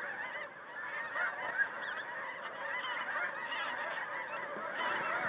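A large flock of snow geese calling: a dense, steady chorus of many overlapping high-pitched honks.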